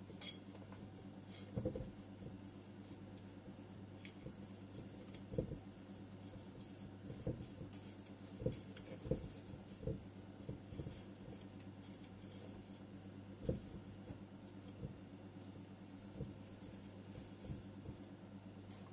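Hands working potting soil around a plant in a ceramic pot: soft, irregular thumps with faint scratchy rustling, over a steady low hum.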